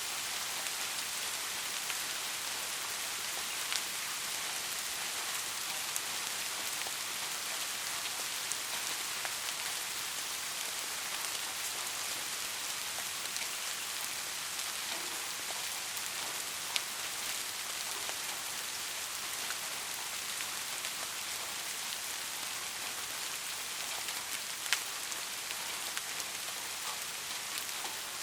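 Steady rain falling, an even hiss with a few sharper drop ticks standing out, the loudest about three seconds before the end.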